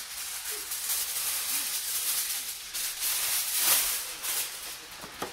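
Heavy-duty aluminium foil crinkling and rustling as it is pulled from the roll and spread over a tray, with a burst of loud crinkling about two-thirds of the way through.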